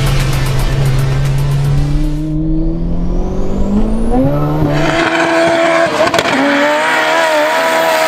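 Fiat Uno Turbo's turbocharged 1.3-litre four-cylinder engine under hard acceleration, its large Garrett GT3076 turbo whistling. A thin whistle rises steeply a couple of seconds in, and the engine note climbs about four to five seconds in, then holds high.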